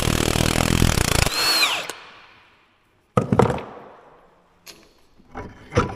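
Impact wrench hammering loose the bolt of a concrete-pump piston cup for about the first second and a half, then winding down. A sharp knock about three seconds in and a few small knocks near the end follow as the parts come loose.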